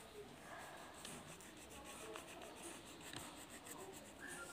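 Faint scratching of a colouring pencil on paper in quick, repeated short strokes as the letters are coloured in.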